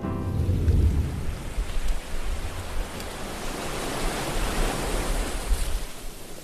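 Steady rushing noise with a deep rumble underneath, easing off near the end.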